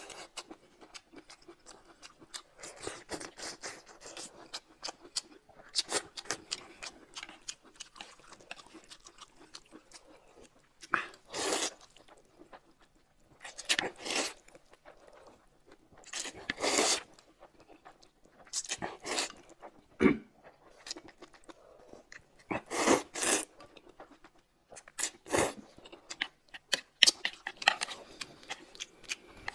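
Close-miked eating: chewing, with short loud slurps about every two to three seconds from about ten seconds in, as noodles and spoonfuls of soup are sucked in.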